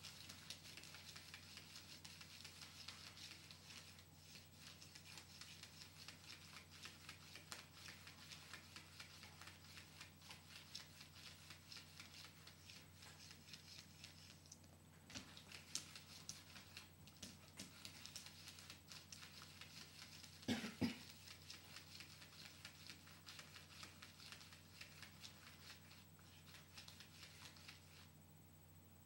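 Cat scratching and pawing at a vinyl floor with its claws: a faint, rapid patter of fine scratches, with a short pause about halfway through and a louder thump a little past two-thirds in, then stopping near the end.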